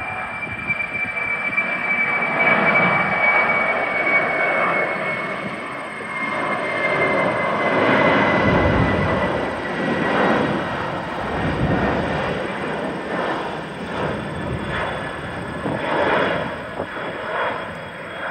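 Boeing 747-400 freighter's four jet engines at takeoff-climb power as it climbs away: a dense jet roar that swells and fades, with a high fan whine that slowly falls in pitch over the first half.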